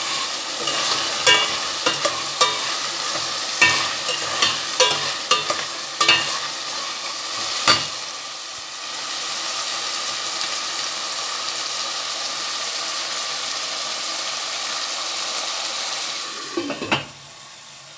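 A metal spoon scraping and knocking against a stainless steel pot as diced carrot and zucchini are stirred, over a steady sizzle of the vegetables cooking in oil. The stirring stops about eight seconds in, leaving only the sizzle. Near the end come a few knocks, then the sound drops much quieter.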